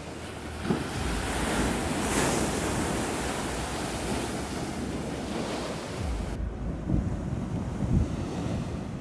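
Rough storm sea: waves breaking and washing on the shore, with a loud surge of breaking surf about two seconds in. Wind buffets the microphone with low thumps.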